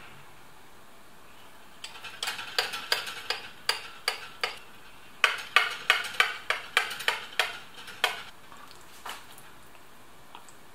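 A spatula cutting down through a baked lasagna's browned cheese top, scraping against the ceramic baking dish. The scrapes come as a quick series of sharp crackly strokes in two runs, from about two seconds in until about eight seconds in.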